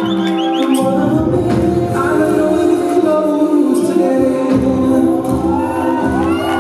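Music with a singing voice over held notes.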